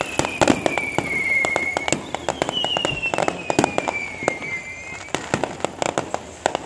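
Aerial fireworks bursting overhead in a rapid string of cracks and bangs. Two long whistles fall slowly in pitch, one ending about two seconds in and another from about two to five seconds in.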